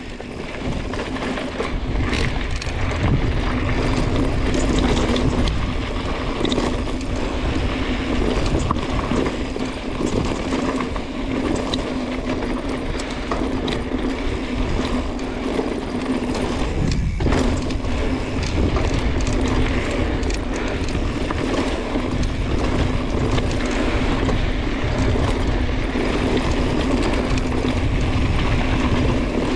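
Mountain bike descending a dry dirt trail: continuous tyre rumble and rattling of the bike over dirt and rocks, with wind on the microphone. The rear freehub buzzes steadily as the bike coasts.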